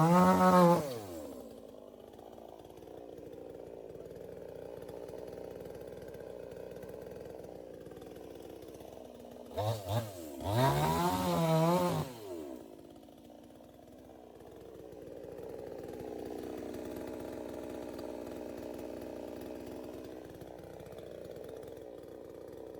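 Chainsaw engine idling, revved hard at the start and again about ten seconds in (a short blip, then a longer rev), each time dropping back to a steady idle.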